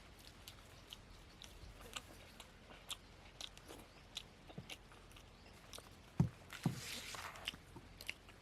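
Close-up chewing and biting of mutton curry and poori, with scattered small crunches and clicks and a louder knock about six seconds in.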